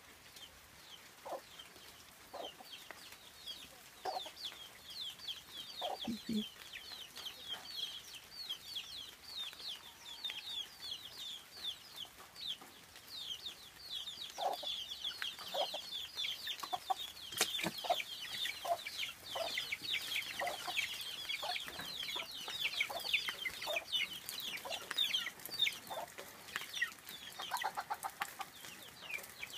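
A brood of chicks peeping constantly in short, high, falling chirps, growing denser about halfway through, while the mother hen clucks now and then in lower calls. A single sharp click sounds near the middle.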